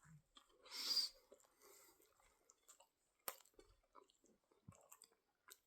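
Faint sounds of a person biting into and chewing a large breakfast burger: a soft, brief bite noise about a second in, then quiet mouth sounds with small clicks.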